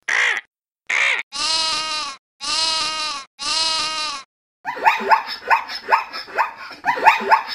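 Two short harsh calls from a vulture, then a lamb bleating three times, each bleat under a second long. A zebra's barking call follows: a rapid string of yelps, about three a second, each falling in pitch.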